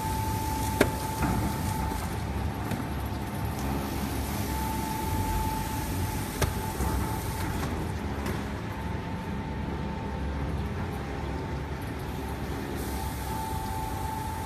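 Thin-blade slitter scorer for corrugated cardboard running, its slitting and creasing rollers turning with a steady mechanical noise and a steady high tone that fades in and out. A sharp click comes about a second in and another about six seconds in.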